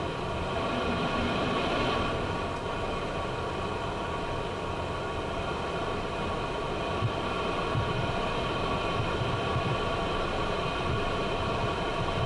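Cessna Citation jet's turbofan engines idling, heard inside the cockpit: a steady sound of several held tones over a low rumble.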